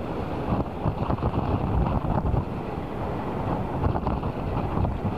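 Gusty wind buffeting the microphone, over the low, steady rumble of an Airbus A380 airliner's jet engines on final approach.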